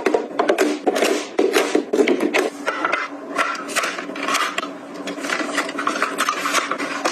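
Close-up handling of small items being organized: a quick run of irregular clicks, taps and light knocks as things are picked up and set down, with rustling and rubbing between them.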